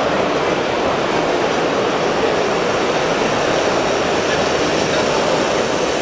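Steady crowd hubbub, a dense mix of many indistinct voices with no single distinct sound standing out.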